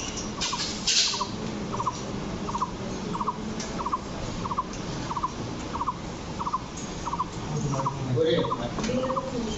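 A parrot giving a short, quick call of two or three notes over and over, about one and a half times a second, with some lower warbling calls near the end.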